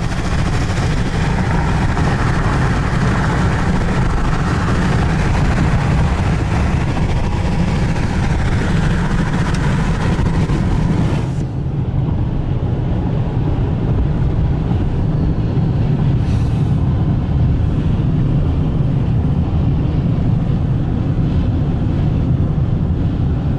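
Road and wind noise inside a moving car's cabin: a steady low rumble of tyres on pavement with a hiss of wind over it. About eleven seconds in, the hiss drops away and the low rumble carries on.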